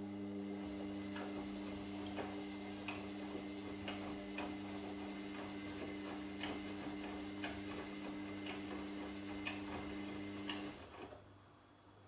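Washing machine motor turning the drum on a wash cycle: a steady hum with sharp clicks about twice a second. It starts at once and stops abruptly about eleven seconds in, as the drum pauses between turns.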